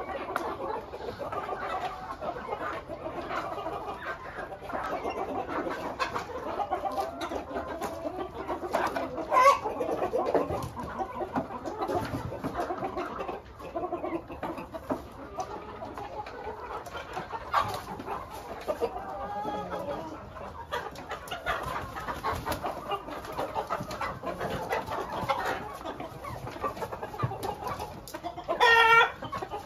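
A flock of chickens, hens and roosters together, clucking constantly in many overlapping short calls. One loud, brief call stands out near the end.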